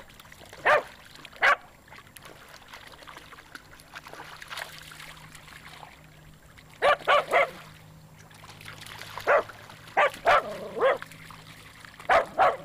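Lakeland terrier barking: about a dozen short barks in irregular groups of one to four, over a faint wash of lapping lake water.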